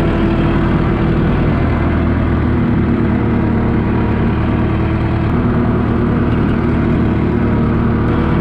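Universal 650 tractor's four-cylinder diesel engine running steadily while the tractor is driven along, towing a trailer.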